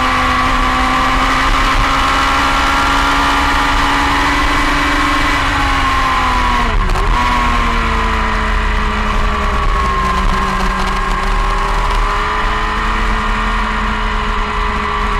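Onboard sound of a motorcycle engine running hard at track speed, its pitch steady then dipping sharply about seven seconds in at a gear change and settling lower. Wind rumbles over the microphone.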